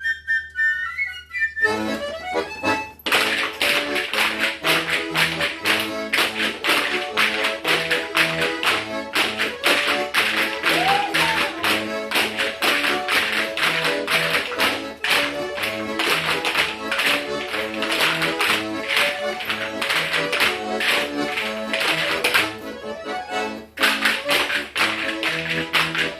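An accordion plays a lively folk dance tune over a fast, steady patter of percussive taps. A high whistle-like melody fades out in the opening second or two, and the tapping and accordion drop away briefly near the end before starting again.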